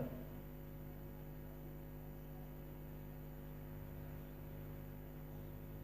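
Faint steady electrical mains hum, a low tone with a stack of evenly spaced overtones, picked up on the recording.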